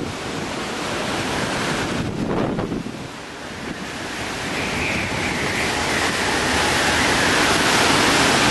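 Category 4 hurricane wind blowing steadily with wind-driven rain. It eases a little about two to three seconds in, then builds to its loudest near the end, with a high whistle riding over it from about halfway.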